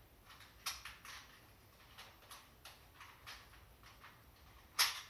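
Airsoft sniper rifle being aimed and fired: a scattering of light clicks and taps, then near the end one sharp, much louder snap as it shoots.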